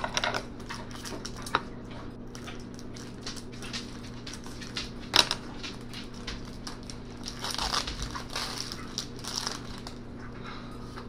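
Foil wrapper of a Pokémon card booster pack crinkling and tearing as it is opened by hand, then the cards rustling as they are pulled out and handled. Two sharp crackles stand out, one at the start and the loudest about five seconds in, with a denser stretch of rustling later on.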